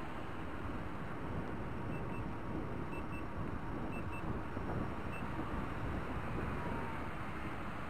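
Milbay MB-14GTX electric unicycle sounding its high speed-warning beeps, the alarm it gives at 22 and 23 km/h: three quick double beeps about a second apart starting about two seconds in, then a single beep. Under them runs a steady rush of wind noise from riding at speed.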